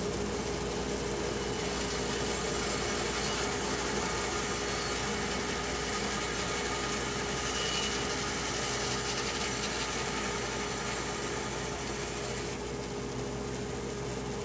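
Power saw running steadily with a constant hum, milling cherry wood.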